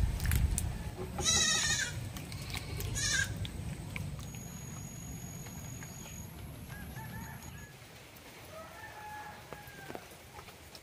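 A goat bleating twice, a longer wavering call about a second in and a shorter one about three seconds in, over a steady low rumble.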